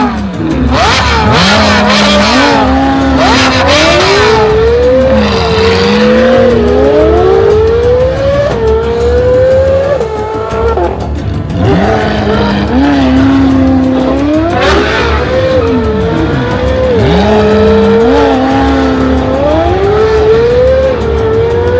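Race car engine sound effect accelerating hard through the gears, its pitch climbing repeatedly and dropping back at each shift, with brief tyre squeals.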